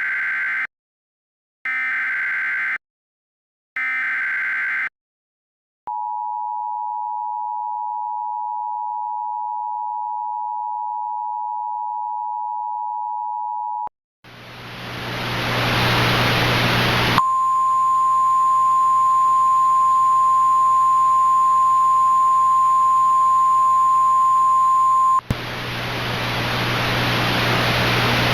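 Emergency Alert System tones: three short SAME header data bursts, then the two-tone attention signal held steady for about eight seconds. A hiss of static then swells up, a single steady weather-radio alert tone sounds over it for about eight seconds and cuts off, and the static continues alone.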